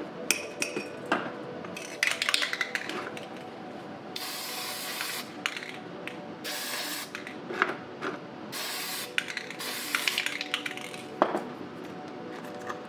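Aerosol can of spray lacquer hissing in four short bursts of about half a second to a second each, sealing pigment-weathered paint. A few sharp clicks and rattles come before the spraying.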